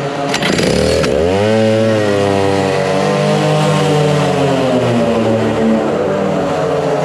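Two-stroke kart engine starting about a second in, its pitch climbing quickly as it revs, then running on at varying revs as the kart pulls away.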